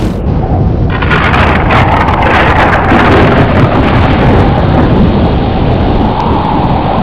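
Storm sound effect: rain hiss over a deep rolling rumble of thunder and wind, loud and continuous. The sound changes abruptly just after the start, and the rain hiss grows louder about a second in.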